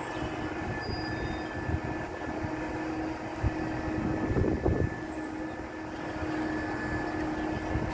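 Steady drone of heavy construction machinery with a constant hum of two steady tones, swelling briefly about four and a half seconds in.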